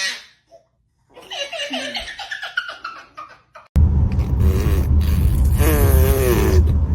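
A baby laughing and giggling in short bursts. About four seconds in, a loud steady low rumbling noise starts suddenly, and the laughing carries on over it.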